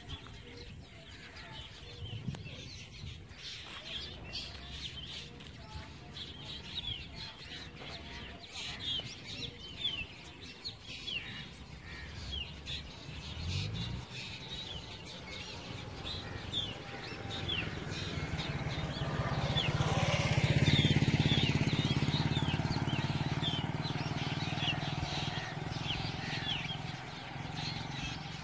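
Birds calling all through, a steady run of short, high, falling chirps. An engine hum comes up about halfway through, grows loudest about two-thirds of the way in, then fades again, like a vehicle passing by.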